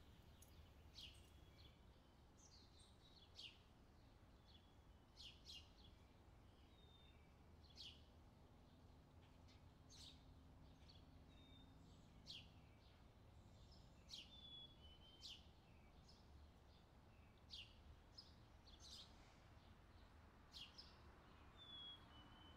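Near silence with faint, short, high bird chirps at irregular moments, roughly once a second.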